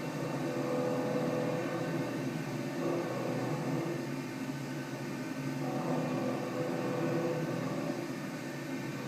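CNC milling machine running a cut: a steady whirring with faint tones that come and go.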